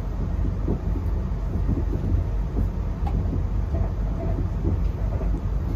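Inside a moving electric passenger train carriage: a steady, loud, low rumble of the train running on the rails, with scattered light knocks and rattles.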